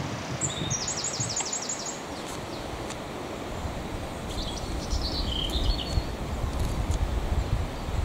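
Small songbird singing outdoors: a quick trill of about eight repeated high notes in the first two seconds, then a shorter, lower phrase about five seconds in. A low wind rumble on the microphone builds in the second half.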